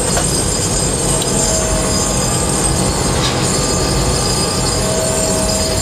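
Tower crane machinery running, heard inside the operator's cab: a steady low mechanical rumble with a thin high whine. A mid-pitched whine comes in about a second in and again near the end.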